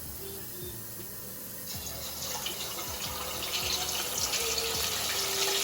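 Water running from a kitchen tap into the sink. It starts about two seconds in and grows louder, then runs steadily.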